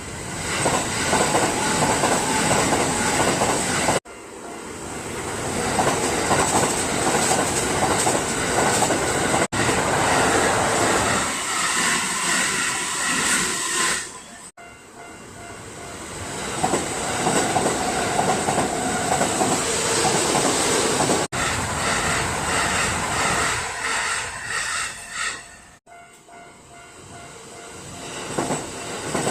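Kintetsu trains passing over a level crossing, wheels clattering over the rail joints, with the crossing's warning bell ringing. Several short segments are cut together, each breaking off suddenly, with cuts about every four to seven seconds.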